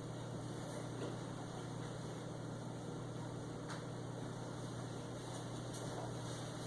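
Steady low hum with a faint hiss and no distinct events.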